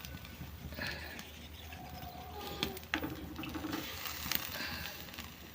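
Faint animal calls, short and wavering, with a buzzy call about three seconds in and a few sharp clicks scattered through.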